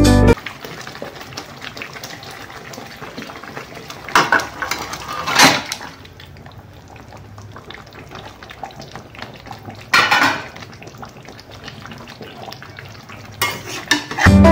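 A metal spatula clattering and scraping against an aluminium kadai as raw chicken pieces go into frying masala, over a low steady sizzle. There are loud clatters about four, five and ten seconds in, and a quick run of knocks near the end as the chicken is stirred.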